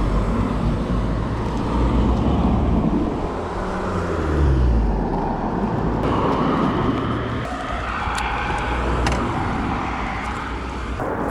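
2010 Yamaha R1's crossplane inline-four engine running through a decatted Akrapovic exhaust, with the revs dropping about four seconds in.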